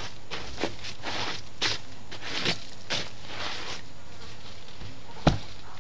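Garden shovel scraping and scooping damp soil among leaf litter, in a run of short rustling scrapes, with a sharp knock near the end.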